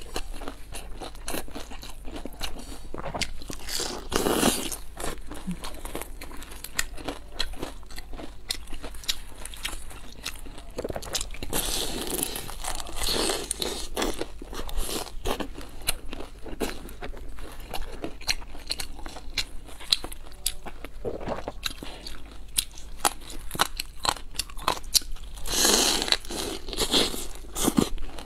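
Close-miked biting and chewing of a pan-fried Chinese vegetable pocket (cai hezi) with a crisp crust: a steady run of small crunches and mouth clicks. Louder crunchy bites come about four seconds in, around twelve to fourteen seconds, and near the end.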